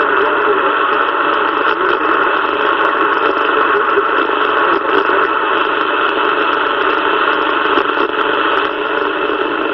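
Steady static hiss from a CB radio receiver's speaker, with faint crackles, while no voice comes through on the channel.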